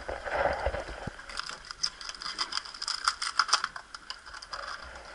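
A knife point cracking and prying into a sea urchin's shell: a run of rapid, irregular clicking and crackling.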